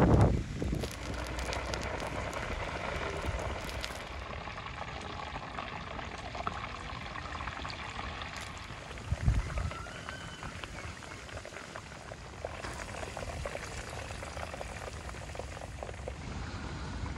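Whole chickens deep-frying in a large pot of hot oil: steady bubbling and crackling of the oil. A brief dull thump about nine seconds in.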